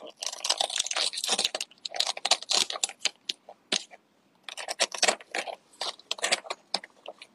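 A person chewing and biting crunchy food close to the microphone, in irregular bursts of crunching with short pauses between them.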